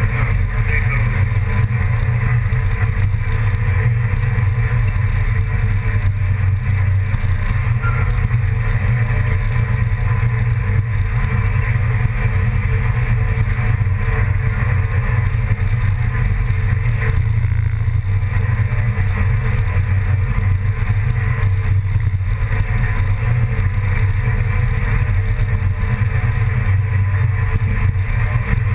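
Steady low engine drone, holding the same speed and loudness throughout.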